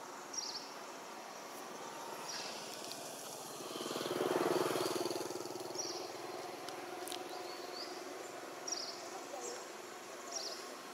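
A motor vehicle passing, its engine sound swelling up and fading away about four to five seconds in, over steady outdoor ambience with short high chirps repeating every second or two.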